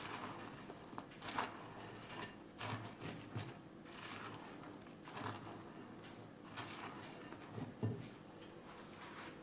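A utensil folding whipped cream and crushed meringue in a bowl: a string of short, irregular scraping strokes.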